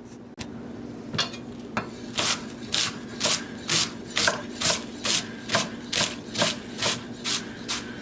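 Kitchen knife slicing vegetables on a cutting board in a steady rhythm of crunchy scraping strokes, about two a second.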